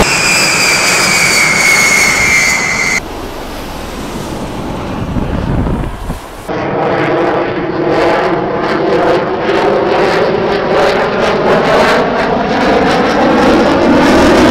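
Military jet flybys: a loud jet engine whine falling slightly in pitch for about three seconds as a B-52 bomber passes overhead, then a sudden cut to a quieter stretch. From about six and a half seconds a fighter jet's engine noise comes in loud, with a sweeping, swirling tone as it passes.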